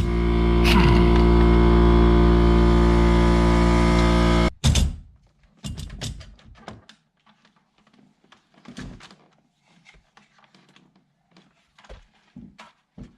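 Impact wrench hammering steadily with a buzzing tone on a 16 mm socket, cutting off abruptly about four and a half seconds in. After it come scattered light clicks and knocks.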